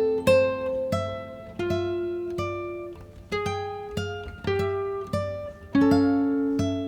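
Background music of slow plucked guitar notes and chords, each ringing and fading before the next.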